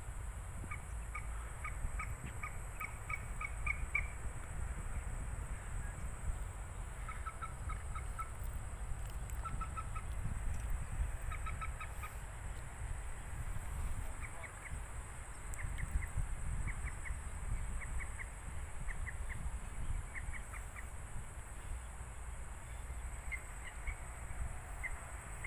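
A bird calling in short, quick runs of clipped notes, a new run every second or two, over a steady high insect drone.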